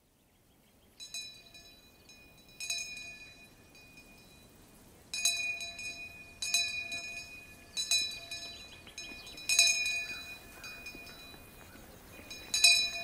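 A small metal bell ringing in single strikes, about seven times at uneven intervals of one to three seconds, each ring fading slowly.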